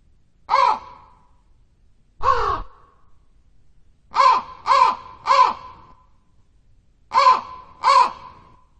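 A crow cawing: seven harsh caws, one, then another, then three in quick succession and two more close together.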